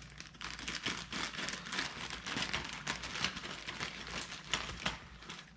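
Thin clear plastic bag crinkling and rustling as it is handled and cut open with scissors, with the plastic guard combs inside shifting against each other. The crackling goes on the whole time and fades a little near the end.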